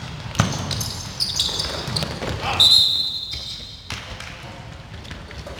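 Dodgeball play on a wooden gym floor: sneakers squeaking in short high squeaks, the loudest near the middle, and balls thudding, with players' voices calling out.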